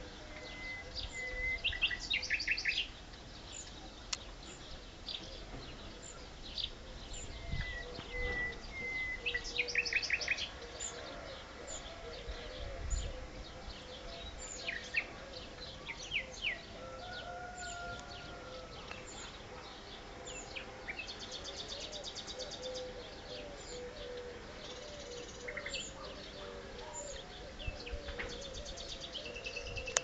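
Several wild birds singing at once in spring: overlapping bursts of fast trills and chirps, loudest about two and ten seconds in, over a lower run of repeated calls.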